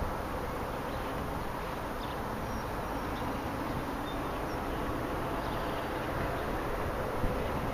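Steady low outdoor rumble with a faint steady hum, and a few faint high chirps from small creatures.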